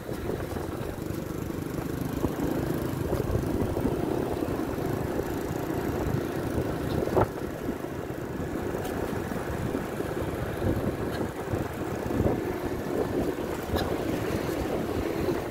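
Riding noise from a motorcycle on the move: a steady rumble of engine and road with wind on the microphone, and a sharp click about halfway through.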